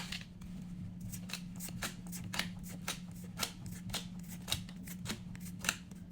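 Pokémon trading cards from a freshly opened booster pack being flicked through one by one by hand, a quick card-on-card slide about three times a second, over a steady low hum.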